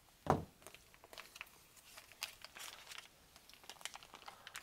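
Aluminium foil food pouch crinkling and rustling as it is handled and its contents are spooned out, with scattered small clicks and one soft knock about a third of a second in.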